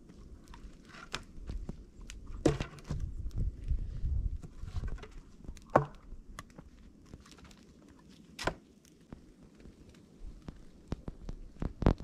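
Twigs and sticks snapping in several sharp cracks, with rustling and crunching in snow between them and a low rumble for a couple of seconds partway through.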